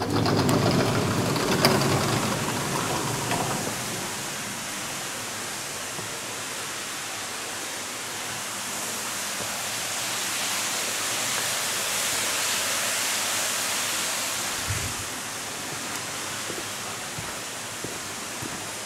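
Steady rushing hiss of air moving through a railway tunnel station. It comes in suddenly and loudly at the start as the door to the platform opens, with a short clatter, then runs on evenly and swells a little in the middle.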